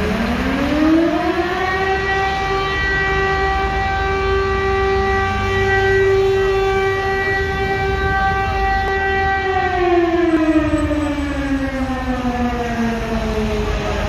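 Civil defence siren winding up over about two seconds, holding one steady wailing tone for several seconds, then winding slowly back down near the end. It is a scheduled test of the public warning system.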